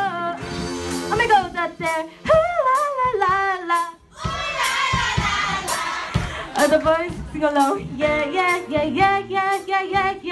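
Live band music: a young female vocalist sings into a microphone with wavering, vibrato-like pitch over electric guitar, bass, keyboard and drum kit. The music breaks off briefly about four seconds in, then the full band comes back in with drums and cymbals.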